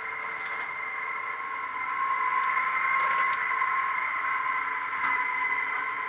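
Lifeboat davit winch running, a steady whine at a few fixed pitches that grows slightly louder about two seconds in.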